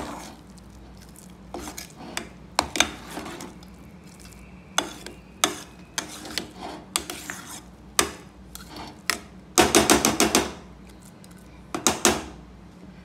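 Metal ladle stirring a thick millet-and-dal mixture in a stainless steel pressure cooker, clanking and scraping against the pot's sides at irregular moments, with a quick run of about half a dozen knocks near ten seconds in.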